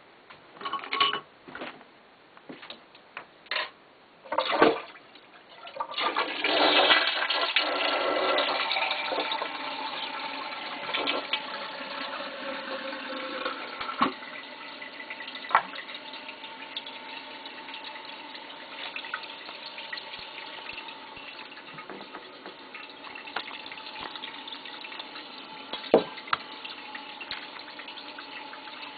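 A few short knocks, then about six seconds in a Kohler Wellworth toilet flushes: water rushes loudly into the bowl and eases into a steady hiss with a steady tone as the tank refills.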